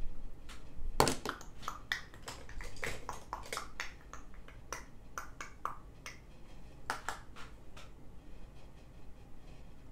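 Makeup tools and an eyeshadow palette being handled and set down on a table: a run of light clicks and taps, the loudest about a second in, most of them in the first four seconds, and a couple more near seven seconds.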